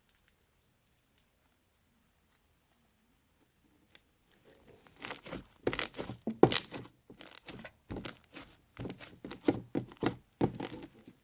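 Crunchy slime, made with Tide and Elmer's Magic Liquid, being squeezed and pressed, crackling and popping in a quick run of small snaps that starts about four seconds in after a few faint clicks.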